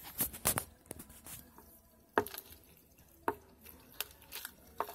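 Foam-bead slime being dug out of a small plastic tub by hand: a string of separate sharp clicks and pops at irregular intervals as the fingers squeeze through the beads.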